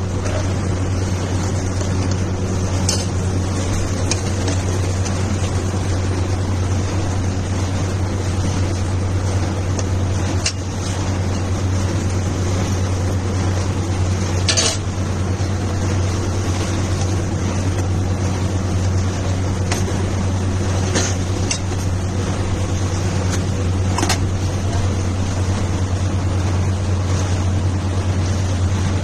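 A steady low hum, with a few sharp clinks of spoons or cutlery on plates scattered through it.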